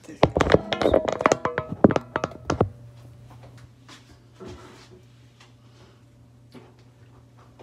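Handling noise on a phone's microphone as the phone is grabbed and repositioned: a dense run of knocks, rubbing and clatter lasting about two and a half seconds, then a few faint taps.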